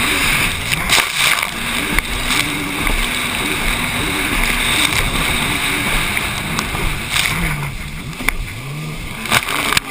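Racing jet ski running at speed, heard through heavy wind rush, the engine note wavering up and down with the throttle. Several sharp knocks come through as the hull hits chop and wakes.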